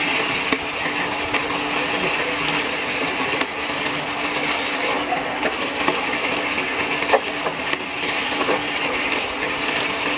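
Pork afritada sizzling in a pan as it is stirred with a wooden spatula: a steady frying hiss with a few light knocks of the spatula against the pan.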